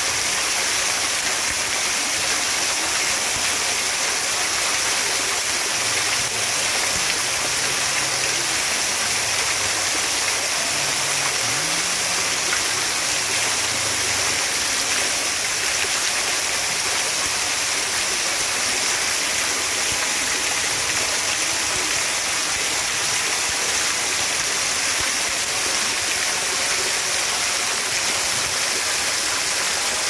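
Fountain water falling and splashing steadily into a shallow pool, a constant hiss of drops on the water surface.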